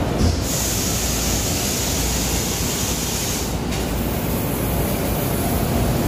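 Steady mechanical din of a machinery exhibition hall, with a high hiss that starts about half a second in and stops sharply about three and a half seconds in.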